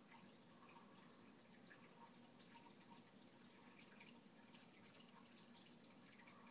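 Faint dripping and trickling of water falling onto an aquarium's surface, many small irregular drips, over a faint steady low hum.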